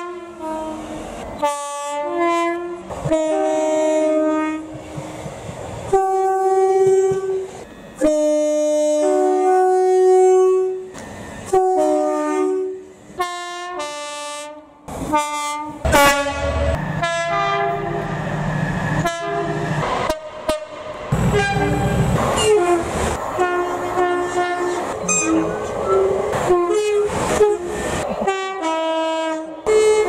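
Two-tone train horns sounded as a long run of short high and low blasts, played like a tune of many notes. About sixteen seconds in, a Class 66 diesel locomotive's engine rumble comes in under further horn blasts.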